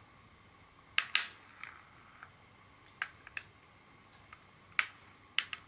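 Small metal parts of a REAN 3.5mm stereo jack plug clicking as they are handled and set down on a table. About ten short, sharp clicks come at irregular spacing, the loudest about a second in and just before five seconds.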